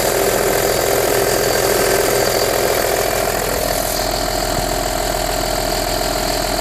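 Audi A4 B6 2.5 TDI V6 diesel engine idling after a cold-weather start, with the strange noise the owner is showing. Its tone shifts slightly and it gets a little quieter about three and a half seconds in.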